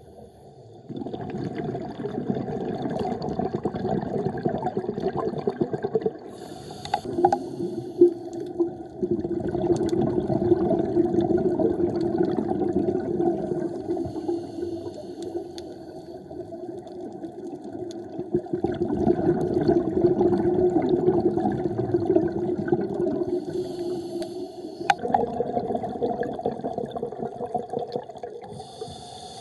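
Scuba diver breathing through a regulator underwater: long bubbling rushes of exhaled air, broken every several seconds by short high hisses of inhalation.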